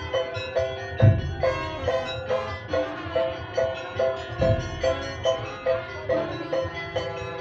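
Madurese daul (tongtong) street ensemble playing a melody of quick, evenly spaced struck notes, about three a second, over deep drum beats that fall about a second in and again about three and a half seconds later.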